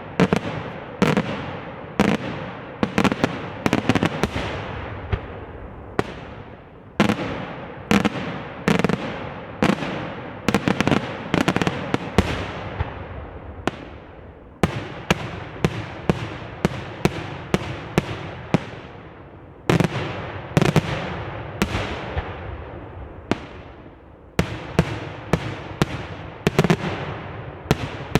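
Aerial fireworks display: rapid volleys of shell bursts, several bangs a second, each with a crackling, echoing tail. The bursts come in clusters that thin out for a moment about a third and half way through and again near the end, then resume.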